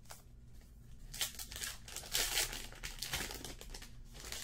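Plastic-foil wrapper of a Topps Archives baseball card pack crinkling in a run of crackly rustles as it is handled and torn open, loudest in the middle of the stretch.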